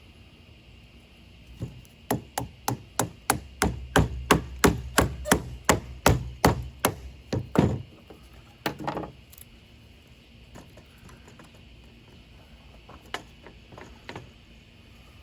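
A quick, even run of about twenty sharp wooden knocks, roughly three a second, like wood being struck repeatedly. One more knock comes about a second later, and a few faint clicks follow near the end.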